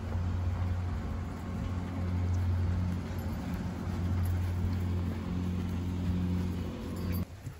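Ride-on lawn mower engine running steadily while cutting grass: a constant low drone that cuts off suddenly near the end.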